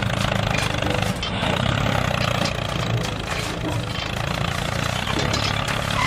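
A DIY mini tractor's small engine running steadily.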